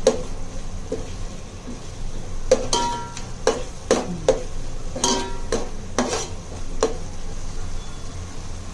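A spoon stirring a masala frying in oil in a pan, with about a dozen sharp, ringing clanks against the pan, most of them from a couple of seconds in until near the end.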